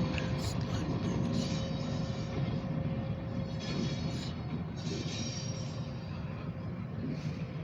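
Light power diesel locomotives rumbling by on the rails and slowly fading as they move away, with a few brief faint wheel squeaks.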